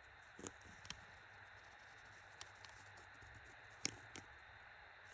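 Near-silent room tone with a handful of faint, sharp taps and clicks from drawing on a sheet of paper.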